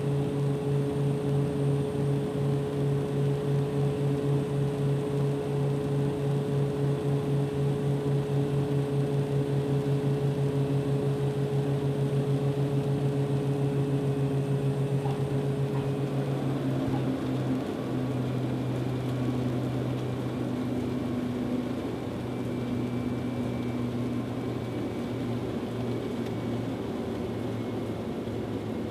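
Twin Pratt & Whitney Canada PT6A turboprops of a C-145A Combat Coyote, heard from inside the cockpit, run as a steady drone with an even, rhythmic throb during the landing approach. A bit over halfway through, the drone drops in pitch and the throb fades as power comes back on the runway.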